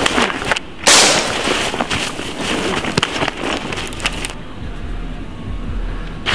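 Film gunfire effects: a loud shot about a second in, then a rapid crackle of sharp cracks. About four seconds in the cracks thin out and a low rumble sets in.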